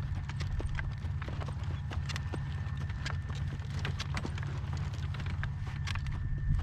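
A horse's hooves clopping at a walk, many short sharp strikes, over a steady low rumble of wind buffeting the microphone.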